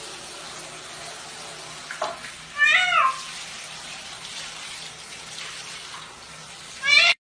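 A cat meows twice, once about three seconds in and again near the end, over steady running water.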